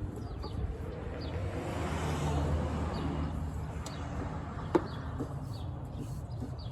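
A vehicle passing by: a broad rushing sound with a low hum swells for a couple of seconds and fades away. A single sharp click comes about five seconds in.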